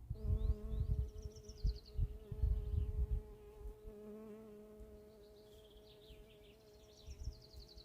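A flying insect buzzing steadily close by, a bee or fly hovering with a constant pitch. Birds chirp and trill behind it, most clearly near the start and again in the last few seconds, and low thumps and rumble come in the first three seconds.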